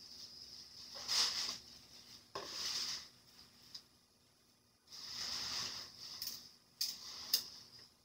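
Quiet cafe room sound: several short scraping or rustling noises, each under a second, then a few sharp clicks like cups or cutlery being set down near the end.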